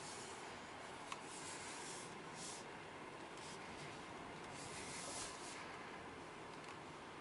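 Faint road and tyre hush inside the cabin of a Mercedes S-Class driving slowly, with a few soft hissing rubs and a single click about a second in.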